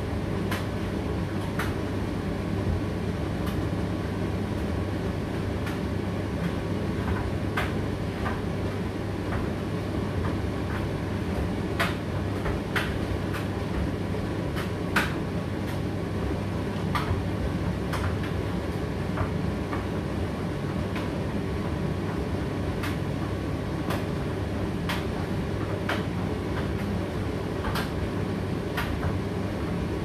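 Indesit IDC8T3 condenser tumble dryer running on high heat: a steady low hum of its motor and fan as the drum turns, with irregular sharp clicks every second or two.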